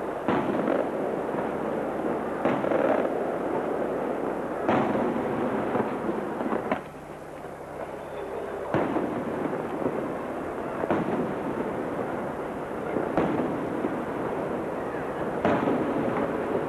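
Aerial firework shells bursting overhead: about eight sharp bangs, roughly two seconds apart, over a continuous crackling, noisy wash.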